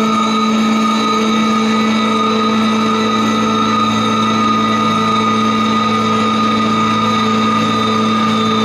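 A steady drone of many instruments holding the notes A and E together as one unchanging chord, strongest on a low A.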